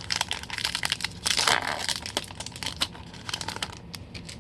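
A trading-card pack wrapper crinkling as it is torn open, with a louder tearing rustle about a second in and many small clicks and snaps of the wrapper and cards being handled.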